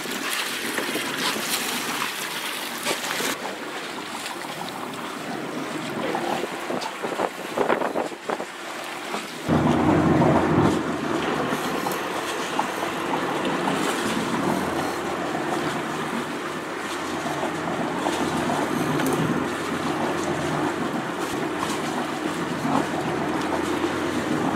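Water splashing and wind on the microphone. About ten seconds in, a boat engine starts to be heard and then runs steadily under the wind.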